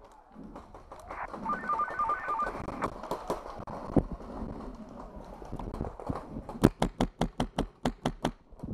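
A paintball marker firing a rapid string of about a dozen shots, roughly seven a second, starting about two thirds of the way in, with scattered single pops before it.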